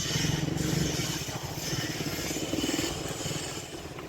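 A motor vehicle's engine running close by, with a rapid low pulsing that eases off over the last second, over general street noise.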